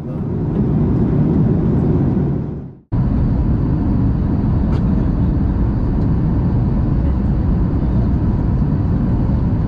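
Steady roar of a Boeing 737 MAX 9's cabin noise during descent, its CFM LEAP-1B engines and the rush of air heard from a window seat over the wing. The sound dips to silence for a moment about three seconds in, where the recording is cut, then carries on at the same level.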